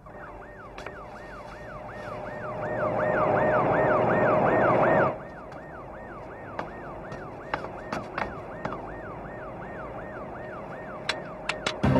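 Police car siren in a fast up-and-down yelp, about two sweeps a second. A louder rushing noise builds under it and cuts off abruptly about five seconds in, and a few sharp knocks follow near the end.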